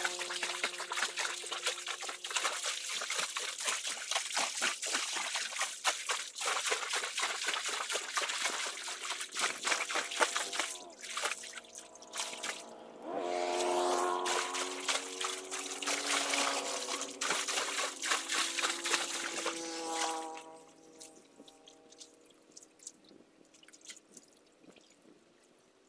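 Water splashing and sloshing as a person wades chest-deep through a pool, a dense run of irregular splashes. A pitched sound of several tones rises over the splashing in the middle. Everything stops about twenty seconds in.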